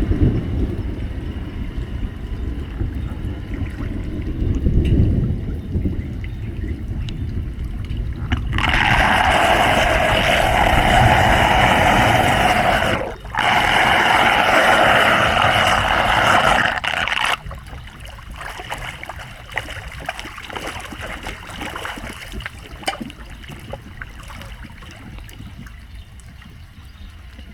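Floodwater draining: a low rumble at first, then about nine seconds of loud rushing water that starts and stops abruptly, broken briefly in the middle, then a quieter trickling and gurgling.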